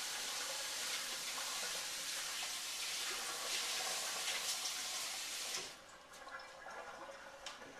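Kitchen tap running, with water splashing over hands being washed; the water shuts off about three-quarters of the way through, leaving faint handling sounds.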